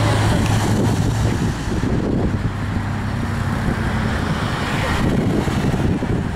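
Road traffic passing close by: a pickup truck's engine hum fades about a second and a half in, followed by the steady engine and tyre noise of passing cars.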